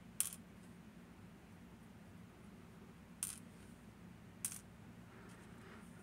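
Three small, sharp metallic clicks, the first the loudest, as small metal parts of a Miwa VM88 cam lock are handled and set down, over a faint steady low hum.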